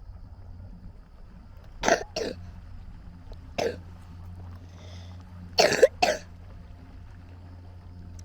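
A person coughing: two quick coughs about two seconds in, a single cough a little later, then a louder pair of coughs, over a steady low hum.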